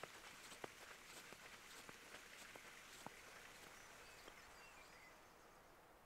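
Near silence: faint outdoor quiet with scattered soft ticks that thin out toward the end, and a few faint, high bird chirps.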